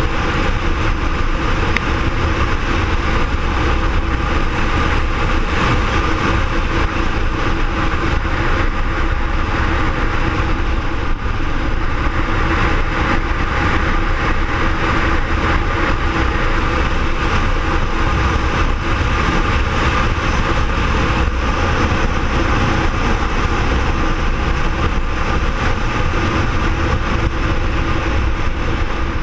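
BMW R1200R motorcycle's boxer twin engine running steadily at cruising speed, heard from a camera mounted on the moving bike, with no gear changes or sudden revs.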